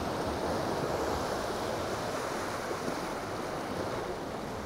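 Sea waves breaking and washing against jetty rocks, a steady rushing that eases slightly, with wind on the microphone.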